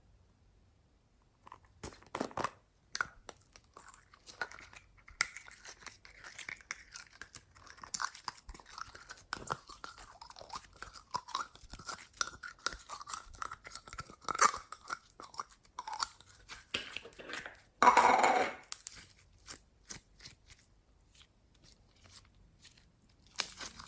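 Hands kneading and stretching glossy slime, making irregular sticky crackles and small pops, with one louder burst about three quarters of the way through.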